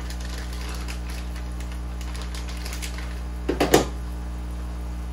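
Steady low hum of running aquarium equipment (air pump and filters) under faint crackling of a plastic shipping bag being handled, with a short burst of louder crinkling clicks about three and a half seconds in.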